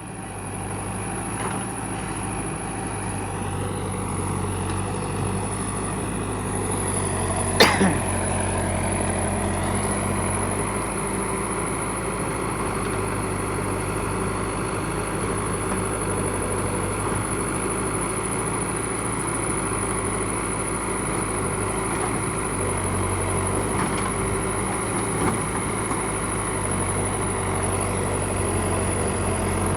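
Backhoe loader's diesel engine running steadily as it digs, with one sharp knock about a quarter of the way in and a couple of fainter knocks later.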